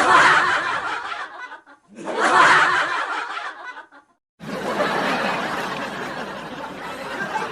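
Laughter sound effect in two bursts, the second starting about two seconds in. It cuts to silence, and a steadier, noisy stretch that sounds like voices follows from about halfway through.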